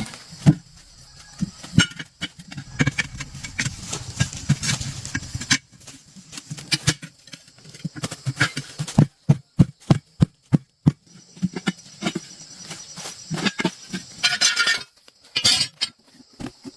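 Irregular knocks and clinks of hand tools on metal parts during work on a car wheel, with a quick run of even taps, about five a second, around the middle.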